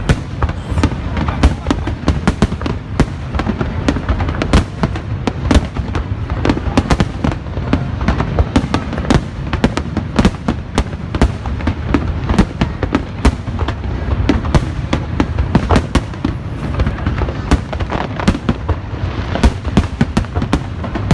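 Fireworks display: a dense, continuous run of sharp bangs and crackles over deep booms.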